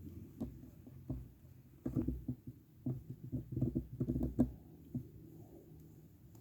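An irregular run of soft taps and knocks, densest between about two and four and a half seconds in, with a last single knock near five seconds.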